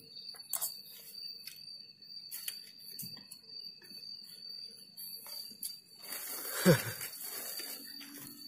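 Steady high insect chirring, with scattered light clicks and knocks. About six and a half seconds in, a short voice-like sound slides down in pitch; it is the loudest sound here.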